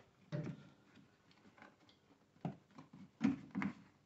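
Scattered sharp plastic clicks and knocks from the plastic windshield cowl panel of a Škoda Octavia A5 being unclipped from its rubber seal and handled: one about a third of a second in, then several in quick succession in the second half.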